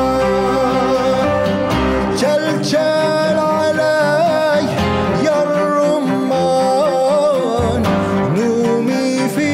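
A man singing an Arabic folk song, accompanied by acoustic guitar, cellos and piano.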